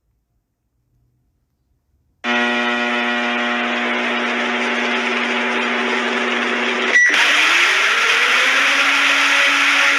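Electronic emergency-alert-style alarm: about two seconds of dead silence, then a loud buzzing tone over a noise hiss starts and holds steady. About seven seconds in it cuts with a click to a different noisy drone, whose tone rises in pitch and then holds.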